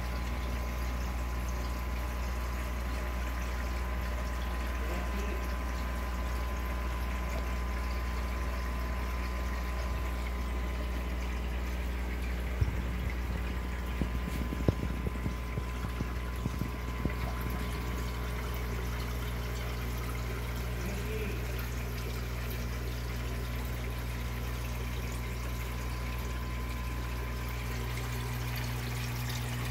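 Aquarium filter return splashing and trickling into the tank's water, with a steady low hum from the filter pump. A few light knocks come about halfway through.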